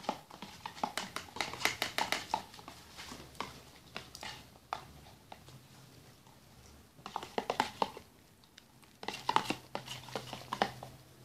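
Plastic spoon clicking and scraping against a plastic tub in irregular clusters of quick taps, as baking powder is stirred into green glue to thicken it into slime.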